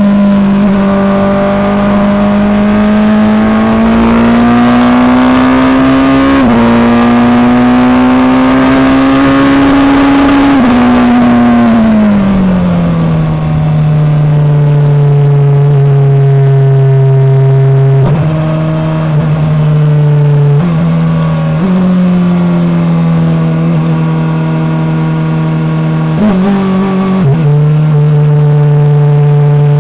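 Onboard sound of a Formula Two single-seater's engine under way: the note climbs slowly with a gear change about six seconds in, falls away between about eleven and thirteen seconds in, then holds a steady lower note. A few brief dips and steps in pitch follow later on, as from gear changes.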